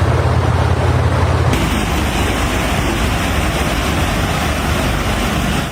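Loud, steady rush of fast-moving floodwater, with a low rumble at first; the sound changes abruptly to a brighter, hissier rush about a second and a half in.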